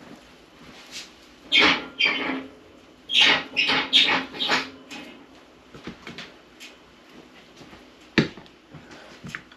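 A seasoning bottle shaken over steaks in a pan: two short shakes about a second and a half in, then four quick shakes in a row around three to five seconds in, with a sharp click near the end.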